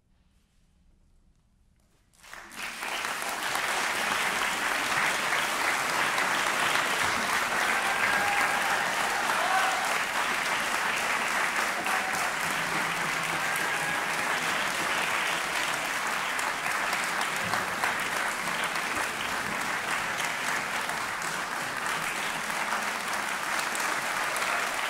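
About two seconds of near silence, then an audience breaks into applause that swells within a second and holds steady.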